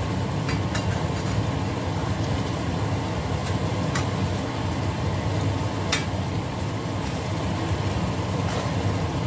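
Fish simmering in sauce in a frying pan, stirred with a metal spatula that clicks against the pan a few times, over a steady low rumble.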